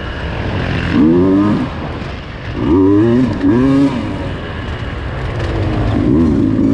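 Off-road dirt bike engine revving in about four short bursts of throttle, dropping back to a lower run between them, as it picks its way along a wooded singletrack trail.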